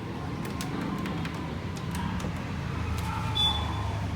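Canon MF3010 laser printer running a test print: a steady motor and gear-train hum with light clicks, and a brief high tone about three and a half seconds in. The drive gear with worn teeth has been replaced, so it runs without the earlier grinding noise.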